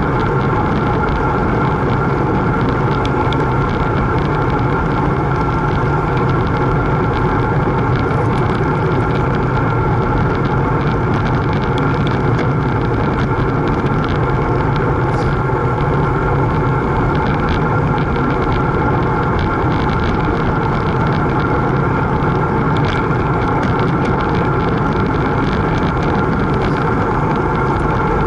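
Steady rush of wind on the microphone and road noise from a road bike riding at speed on asphalt.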